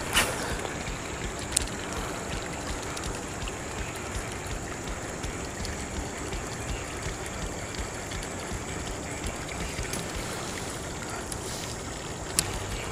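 Steady rushing of running water, with a few short sharp clicks, one about a second and a half in and one near the end.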